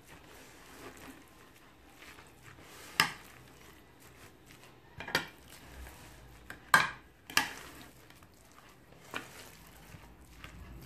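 Metal spoon stirring minced meat and spices in a plate, clinking sharply against the plate a handful of times, the loudest clinks near the middle.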